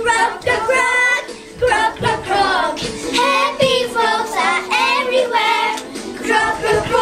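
A group of young children singing a song together.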